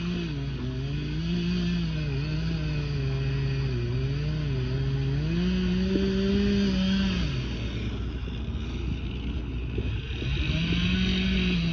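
Chainsaw running while cutting into a spruce trunk, the engine pitch wavering up and down as it works in the cut. It dies down about seven and a half seconds in and revs back up near the end.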